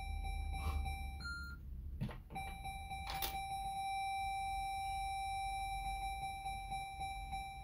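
Electronic fruit slot machine sounding a steady held beep tone, broken about a second in by a short higher beep. A few sharp clicks of its bet buttons follow about two to three seconds in, and then the steady tone resumes.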